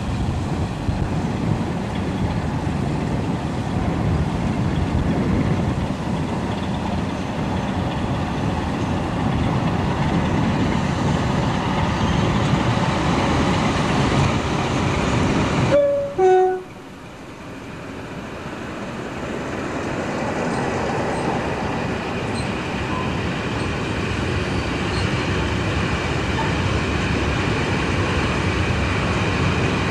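A diesel locomotive hauling a long train of covered hopper wagons passes at speed: steady engine and rail noise. About halfway through the sound briefly breaks off with a few short tones, then the wagons rolling along the track build back to a steady noise.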